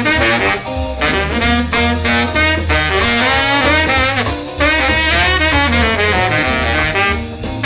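Baritone saxophone playing a jazz line of quick rising and falling runs, with a band's low bass part underneath and two short gaps in the horn line.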